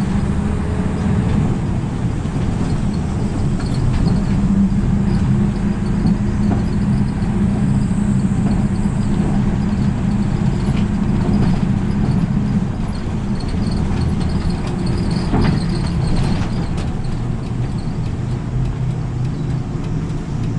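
Route bus's diesel engine running as the bus drives along, with road and tyre noise, heard from inside the cabin at the front. The engine note drops about two-thirds of the way through as the bus eases off.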